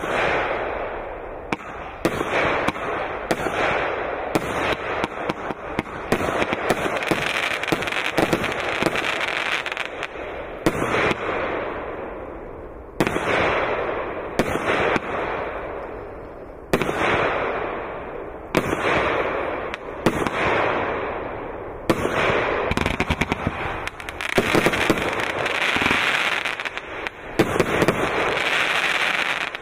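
Consumer fireworks cake firing its shots one after another: repeated sharp bangs, each followed by a crackling fizz that fades over a second or two.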